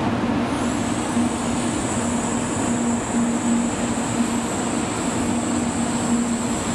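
JR West 500 series Shinkansen approaching at through-running speed: a steady rushing noise with a high, thin whine that sets in about half a second in.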